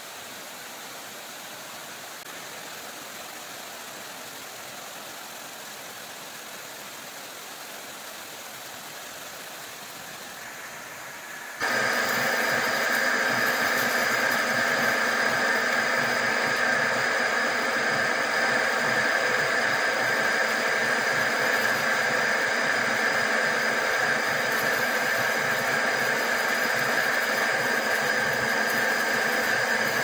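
Metal lathe turning a metal clutch-housing blank while a boring tool cuts the inner bore. A steady hiss for the first several seconds; about twelve seconds in the sound jumps much louder into a steady machining whine with several held tones.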